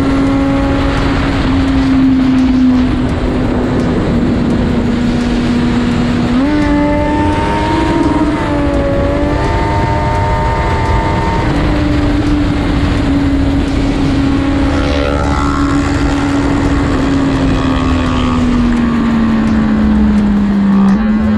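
Motorcycle riding in traffic: the engine runs at a steady pitch under wind rush, with a wavering tone laid over it for several seconds mid-way. The engine pitch falls near the end as the bike slows.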